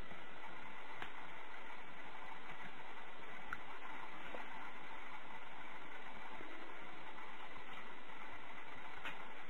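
Steady, even hiss of background noise with no distinct event, broken only by a few faint clicks.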